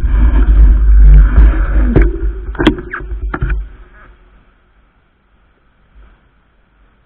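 Wind buffeting the microphone and tyre rumble as the fat-tyre e-bike slows to a stop. There are a few short clicks between about two and three and a half seconds in, then it goes quiet as the bike stands still.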